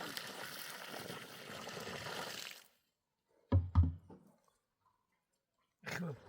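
Water pouring or sloshing for about two and a half seconds, then two dull knocks a second later and another knock near the end.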